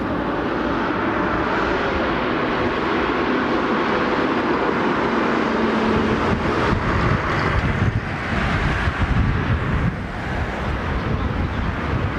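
City bus's diesel engine and tyres passing close by, loudest around the middle and then fading, over general street traffic.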